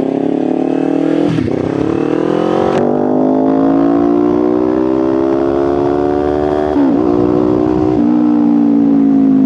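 Kawasaki Ninja 500's parallel-twin engine under way: its pitch drops at a gear change about a second in, then climbs slowly as the bike gathers speed, with two more brief dips near the end before it holds steady.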